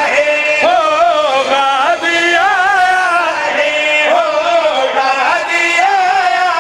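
Men singing a Punjabi devotional qasida together through microphones, drawing out long, wavering, ornamented notes.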